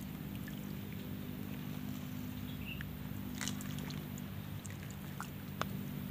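A steady low motor hum runs throughout. Light water splashes and clicks come about three and a half and five and a half seconds in, as hands move through shallow swamp water.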